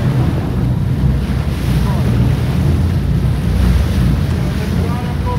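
Wind buffeting the microphone over the steady low rumble of a boat's engine and water wash at sea.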